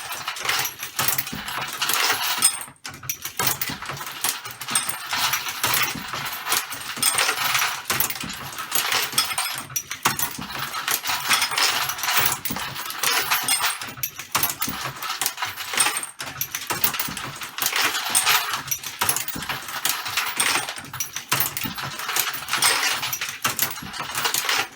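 Dillon XL-650 progressive reloading press being cycled with its roller handle: continuous metallic clicking, clinking and rattling of the press's moving parts and brass cartridge cases, with short pauses between strokes.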